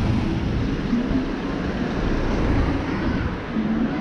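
Busy market street ambience: a steady low rumble with brief, faint fragments of voices.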